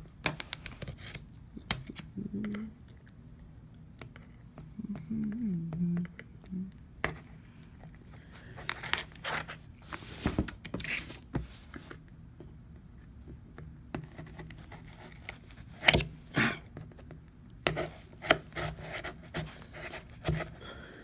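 A sealed cardboard box being cut and torn open: a blade scrapes and tears through the tape and cardboard, with irregular clicks and rustling. The sharpest knocks come about two-thirds of the way through.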